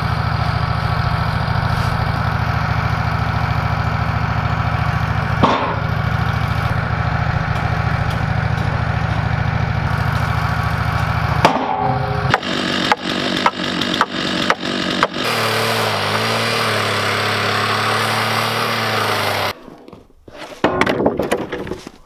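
Wood-Mizer LT15 sawmill engine idling steadily. About halfway through the sound changes to a row of sharp knocks and then another steady running sound that cuts off suddenly, followed by a few thumps near the end.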